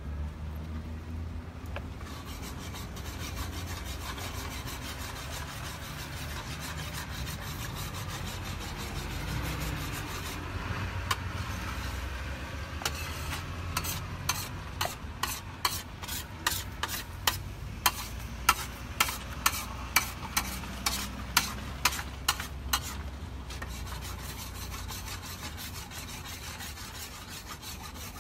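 Spatula stirring and scraping scrambled eggs in a pan on a propane gas cooker, over a steady low rumble. About halfway through comes a run of sharper scrapes, roughly one or two a second, for about ten seconds.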